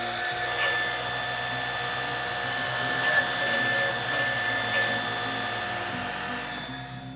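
Grizzly belt grinder running with a steady whine while a curved piece of steel flat stock is ground against the belt. The grinding eases off near the end as guitar music comes in.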